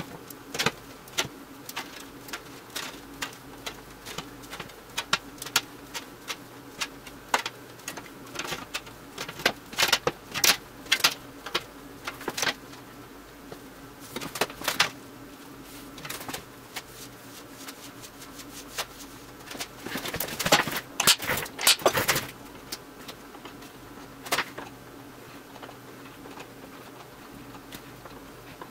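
Felt-tip marker and steel rule worked over an aluminum sheet: short scratchy marker strokes and light taps and clicks of the rule and tools on the metal, in irregular clusters, busiest around ten and twenty seconds in. A faint steady hum runs underneath.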